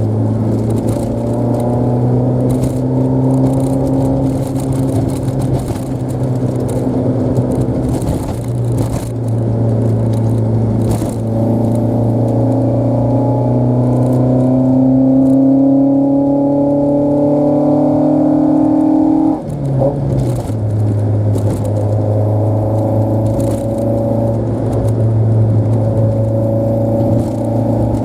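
Toyota AE86's engine running under way. The car accelerates, its note climbing steadily for several seconds, then dropping abruptly about two-thirds of the way through and settling to a steady drone.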